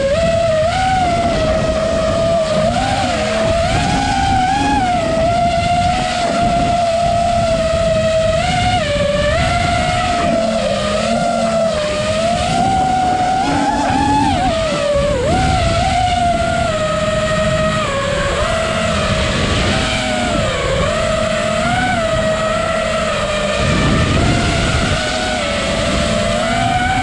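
FPV racing quadcopter's brushless motors and propellers whining, heard from the onboard camera, the pitch rising and falling with every throttle change, over a low rush of air on the microphone.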